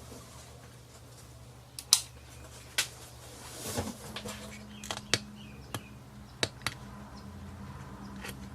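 Scattered sharp clicks and taps of small plastic parts being handled, about nine in all, over a faint steady low hum.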